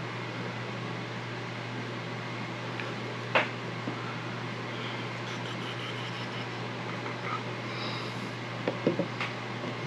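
A steady low hum and hiss of room background, with one sharp click about three and a half seconds in and a few light clicks near the end from handling a glue bottle and small wood strips.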